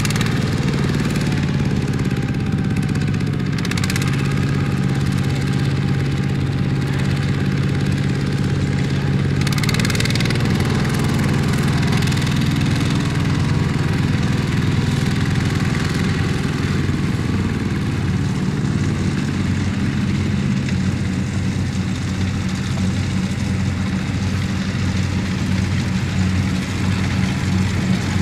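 Two-wheel walking tractor's single-cylinder diesel engine running steadily under load as it drags a loaded trailer through soft, muddy paddy stubble on cage wheels. The engine note shifts slightly about ten seconds in.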